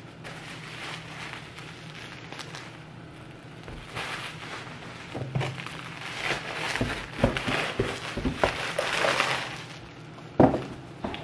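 Rustling and crinkling of packaging with clicks and knocks as a new laptop is handled, busiest in the second half, then one sharp thump near the end.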